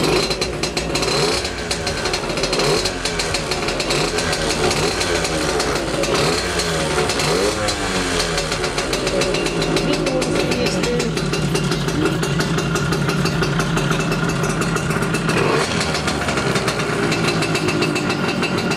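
Small moped engine running steadily, its pitch wavering up and down as it is revved, while it drives a test of a newly fitted speedometer.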